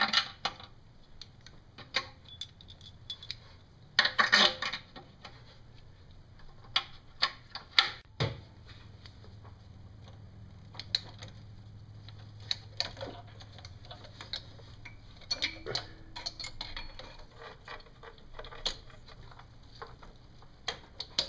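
Metal clinks of steel bolts being handled and threaded into an intake manifold, with irregular clicking of a hand ratchet as the bolts are run down. A louder clatter comes about four seconds in.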